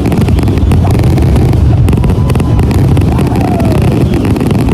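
A fireworks display going off in a dense, continuous barrage: a steady low rumble of booms packed with rapid crackling pops.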